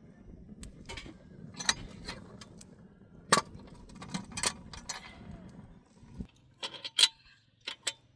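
Irregular sharp clicks and knocks of objects being handled, over a low rumble that drops away about six seconds in.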